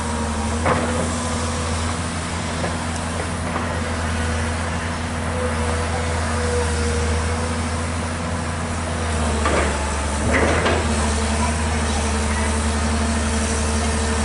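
Komatsu PC200 long-reach excavator's diesel engine running steadily with a low hum and a faint held tone, with a few knocks about a second in and twice around nine to ten seconds in.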